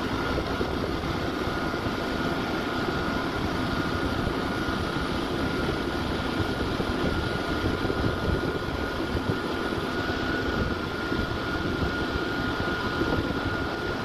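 CIFA truck-mounted concrete boom pump running steadily as its hydraulic boom unfolds: a constant engine and machinery drone with a steady high whine throughout.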